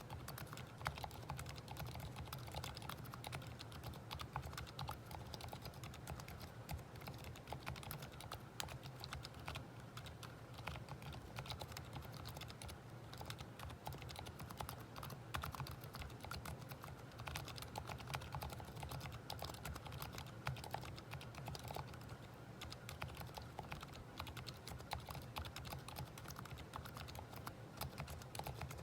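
Steady, fast typing on a Planck rev4 40% ortholinear mechanical keyboard with lubed Gateron Silent Brown switches (silent tactile) and SA-profile keycaps: soft, muted keystroke clicks.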